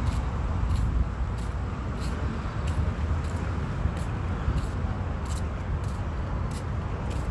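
Steady low outdoor rumble, typical of street traffic, with light footsteps of someone walking on paving, about one and a half steps a second.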